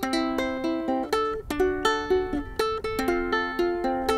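Ukulele fingerpicked in a steady arpeggio, single plucked notes several a second ringing into one another, moving from a C chord to A minor.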